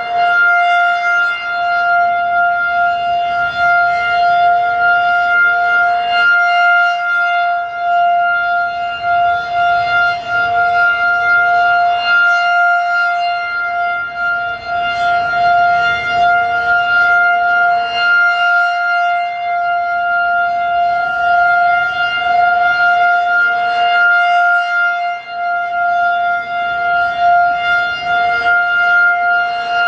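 Federal Signal 2001-DC rotating electromechanical outdoor warning siren sounding a steady alert tone, loud and unwavering in pitch. Its loudness swells and dips about every six seconds as the fast-spinning horn (about 10 RPM) sweeps past and away.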